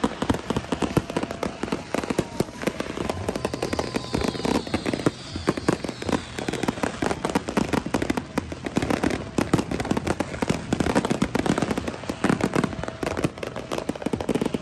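Many fireworks and firecrackers going off at once: a dense, continuous crackle of bangs and pops, with a high whistle sliding down in pitch about four to seven seconds in.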